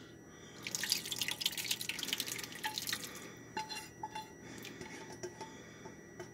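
A creamy sauce pouring from a saucepan into a glass baking dish, splashing steadily from about a second in to three seconds in. After that come scattered drips and small taps as a silicone spatula scrapes the last of it from the pot.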